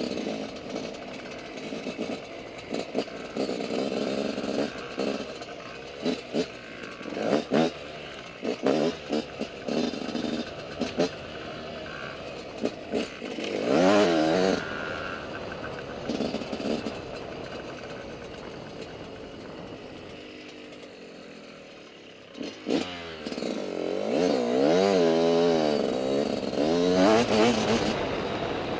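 Dirt bike engine revving up and down while riding a motocross track, with frequent short knocks and rattles. It eases off about two-thirds of the way through, then revs hard again.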